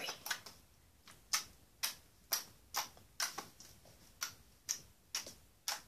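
Homemade slime being poked and pressed with fingertips, giving short, sharp clicking pops at an even pace of about two a second.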